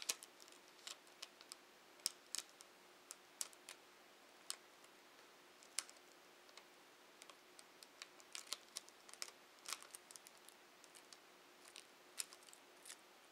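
Faint, irregular small clicks and crackles of fingers picking at and peeling back the tape that holds a laptop's LCD cable connector down.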